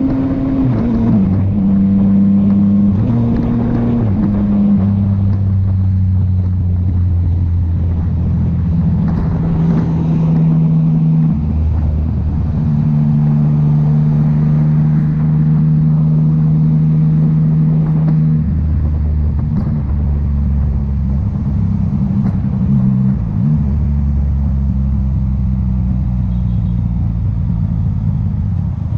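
Yamaha MT-09's three-cylinder engine running under way. Its note holds steady for several seconds at a time, then shifts to a new pitch every few seconds.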